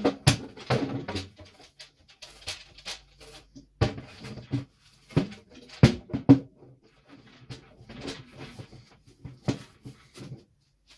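Irregular knocks, clicks and rustles of kitchen containers and food packages being handled and set down, with a few sharper knocks now and then.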